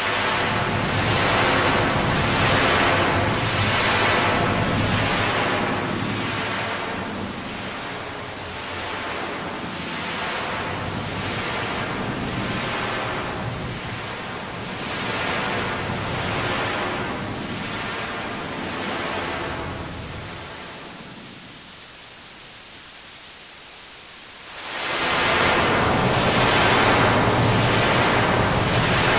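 Singing voice so heavily processed with audio effects that it comes across as a rushing hiss, swelling and fading in a regular pulse roughly once a second. About two-thirds of the way through it drops quieter for a few seconds, then comes back loud.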